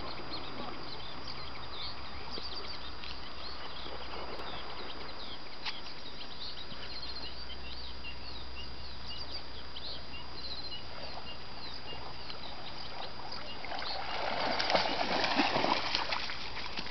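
Small birds chirping over a steady outdoor background, then near the end the splashing of a springer spaniel wading through shallow lake water to the shore.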